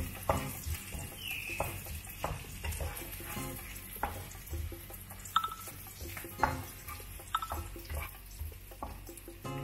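A wooden spatula stirring and scraping seasonings sautéing in a stone-coated frying pan, with irregular clicks and scrapes against the pan over light sizzling.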